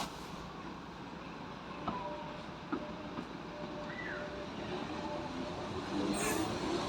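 Class 507 electric train approaching, its noise growing steadily louder.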